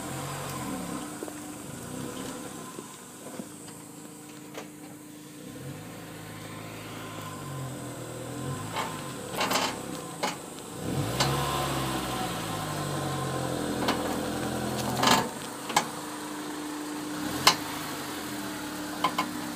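Honda S2000's four-cylinder engine running as the car drives, its pitch rising and falling several times as it speeds up and slows, over a steady low hum that points to a bad wheel bearing assembly. A few sharp clicks or knocks come through in the second half.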